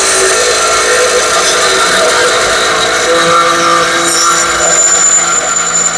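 Power grinder grinding the steel edge of a lawnmower blade to sharpen it: a steady, loud grinding hiss with whining tones that shift in pitch about halfway through.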